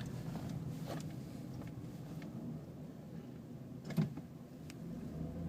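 Steady low engine and road noise inside a 2010 Jeep Liberty as it slows to a stop, with a single sharp click about four seconds in.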